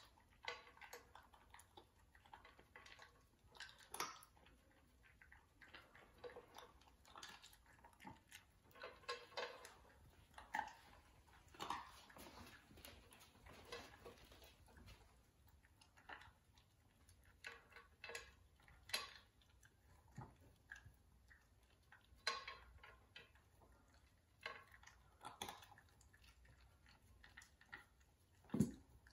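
Shiba Inu crunching dry kibble from a stainless steel bowl: irregular faint crunches with clicks and clinks of kibble and muzzle against the metal bowl, one louder clink near the end.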